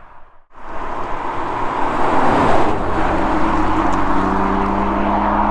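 Audi RS3's five-cylinder engine and exhaust, running loud close by. After a brief gap about half a second in, the sound comes in and settles into a steady note held at one engine speed.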